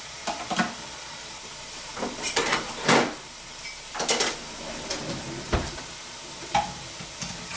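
Ribeye steak sizzling in a lidded frying pan, a steady frying hiss, with scattered knocks and clatters of kitchen utensils being handled, the loudest about three seconds in.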